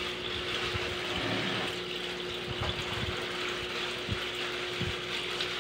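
Tap water running steadily into a concrete sink, splashing over hands rinsing something under the stream. A steady low hum runs underneath.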